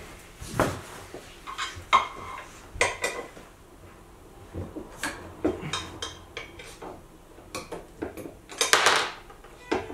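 Irregular clinks and knocks of metal parts and hard plastic as an office chair's back is fitted to its seat by hand, with a longer scuffling noise near the end.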